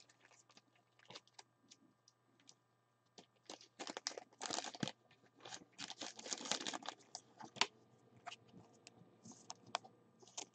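Faint scattered clicks and crinkling of trading cards and plastic card sleeves being handled, busiest between about four and seven seconds in.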